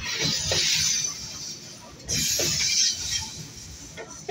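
Train running, heard from on board: a steady low rumble with loud bursts of hiss about every two seconds.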